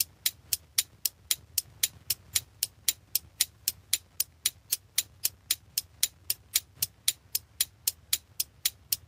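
Clock ticking sound effect: fast, even ticks, about four a second.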